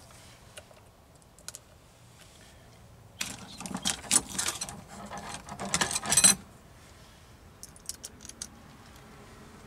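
Small metal hardware clinking and rattling as loose stainless steel screws are handled and sorted by hand, a dense run of about three seconds in the middle, followed by a few light clicks as a bit and screw are fitted to a cordless drill.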